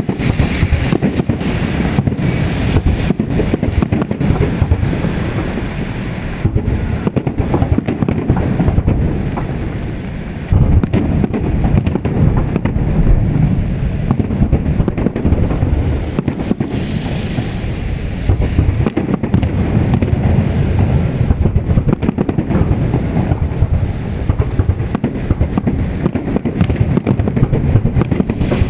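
Fireworks salute: a dense, continuous run of overlapping booming bangs and crackles, with a short lull about ten seconds in.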